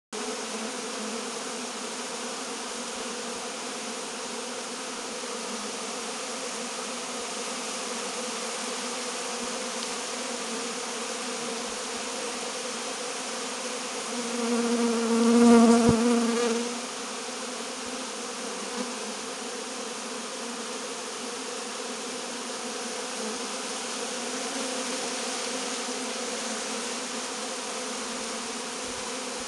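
Honeybees buzzing steadily in numbers around a hive, a low even hum. A little before halfway through, one buzz swells much louder for about two seconds and then fades, as a bee passes close by.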